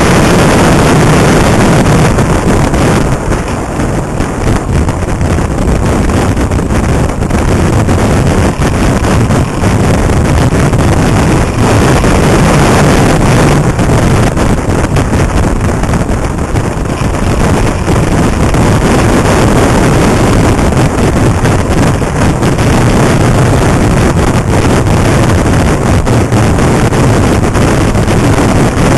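Heavy wind rushing over the microphone of a moving motorcycle, loud and steady, with the bike's engine running underneath.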